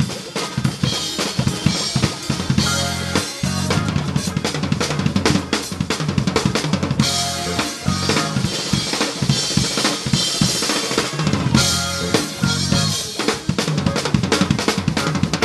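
Drum kit played live in a gospel band: bass drum, snare and cymbals driving the beat, with the band's sustained notes underneath.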